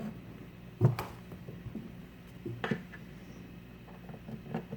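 A few light knocks and clicks as screws are handled and set into the pre-drilled holes of a wooden cabinet door, the strongest about a second in, with a faint steady hum underneath.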